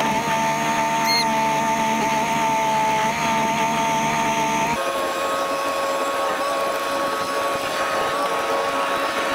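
Chore tractor and feed wagon running: a steady mechanical whine over an engine rumble. About halfway through, the whine shifts pitch and the low rumble drops away.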